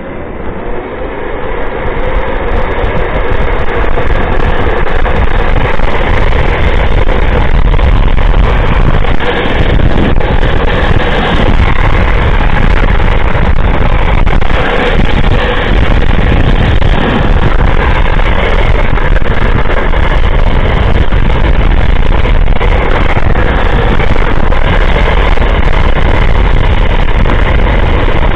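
Wind buffeting the microphone over the rolling noise of a drift trike's wheels on asphalt at speed. It builds over the first two or three seconds, then holds steady and loud.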